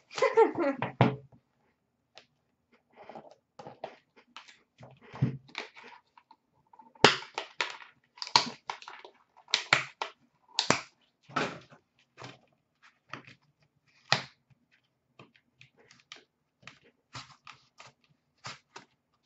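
Trading-card boxes and packaging handled on a counter: a string of short clicks, taps and rustles as a box is opened and its contents lifted out. It begins with a brief scrape that slides down in pitch.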